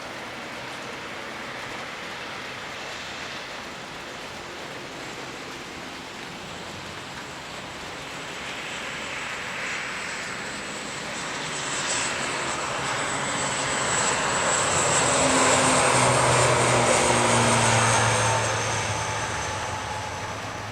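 ATR 72-600 turboprop's Pratt & Whitney PW127-series engines and propellers at takeoff power, swelling to a peak about three-quarters of the way through with a high whine on top, then fading as it goes by. Steady hiss of heavy rain underneath.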